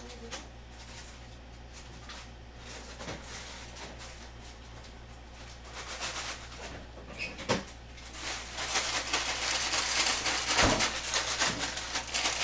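Plastic bag of shredded cheese crinkling as it is carried and handled, starting about eight seconds in, over a steady low hum. Before that only a few faint knocks are heard.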